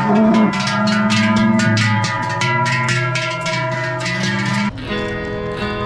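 Background music with a steady beat over sustained pitched notes; the music changes abruptly near the end.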